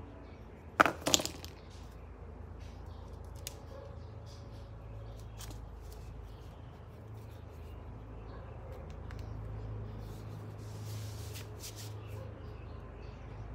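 Two or three sharp clicks about a second in, from a 3.5 mm audio plug and cable being handled at a smartphone, over a low steady hum.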